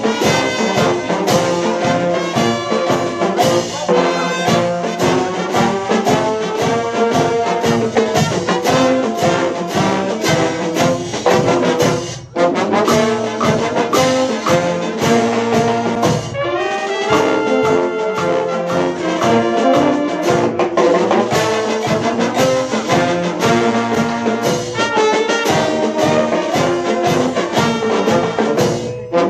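Dutch dweilorkest (street brass band) playing live: trumpets, trombones, saxophones and low brass over snare and bass drums keeping a steady beat. A short break in the music comes about twelve seconds in.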